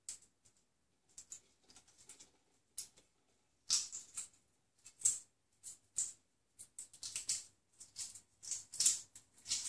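Hard-boiled eggshell crackling and crunching as it is cracked and peeled off by hand, in short irregular crackly bursts that come thicker in the second half.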